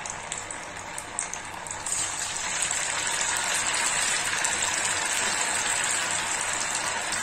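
Semolina and potato snack pieces deep-frying in hot oil in an iron kadhai: a steady hiss of sizzling and bubbling with a few small pops, growing louder about two seconds in.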